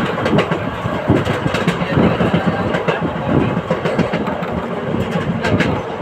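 ALCO WDM3A diesel locomotive's 16-cylinder ALCO 251 engine chugging with a steady, repeating beat, with the train's wheels clattering over the rail joints and a few sharp clicks about five and a half seconds in.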